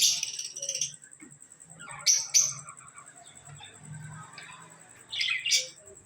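Small cage birds chirping in three loud bouts of high, rapid chirps: at the start, about two seconds in, and just after five seconds. A faint steady high whine runs underneath.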